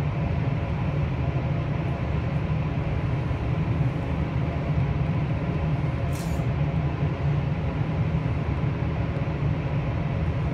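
Wind tunnel fans running with air rushing over the car: a steady, unbroken drone and rush of air, heaviest in the low end. A brief hiss comes through about six seconds in.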